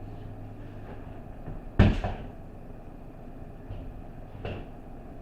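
A loud sharp knock about two seconds in, then a softer one near the end, over a steady low hum.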